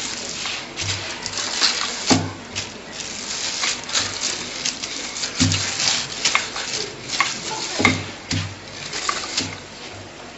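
Wooden rolling pin rolling out a slab of dough on plastic film over a granite counter: crackling and rustling of the film, with a few dull thumps at uneven times.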